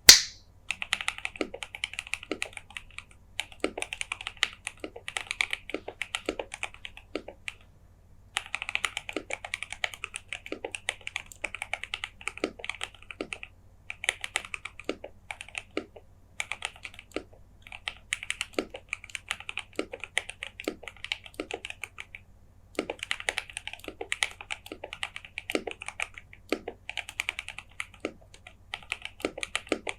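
Typing on a KBD67Lite custom mechanical keyboard with lubed and filmed JWK Alpaca V2 linear switches, a polycarbonate plate, case foam and PBT keycaps: quick runs of key clacks broken by a few short pauses, with a deeper knock about once a second among them. A single loud click at the very start.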